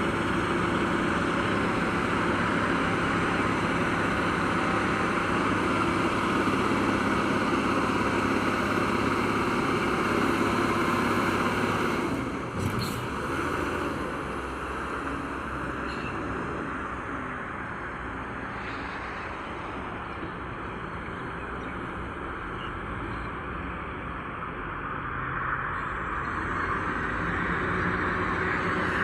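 Heavy earth-moving machine's diesel engine running under load. It is louder for about the first twelve seconds, eases back, then picks up again near the end.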